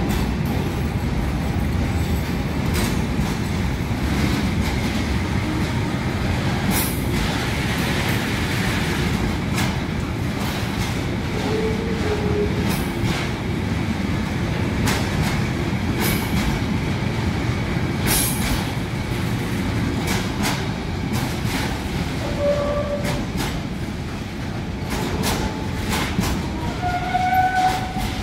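Container freight wagons rolling past: a steady rumble with irregular clacks of wheels over rail joints, and a few short wheel squeals, the last near the end.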